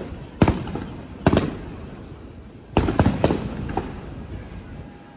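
Aerial fireworks bursting as a series of sharp booms, each trailing off in a rumbling echo. There is one bang about half a second in and another just after a second, then a quick cluster of several bangs around three seconds in.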